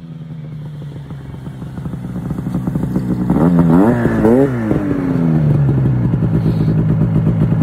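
2005 Ski-Doo Rev 600 HO SDI two-stroke twin running through a GGB Mountain Can aftermarket silencer. It grows louder as the sled approaches, is blipped up and down a few times about halfway through, then settles to a steady high idle.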